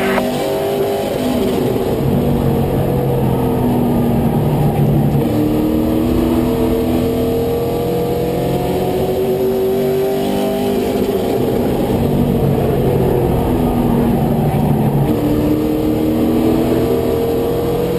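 Race truck's engine at racing speed, heard from inside the cab, its pitch falling and climbing again several times as it goes through the turns and down the straights.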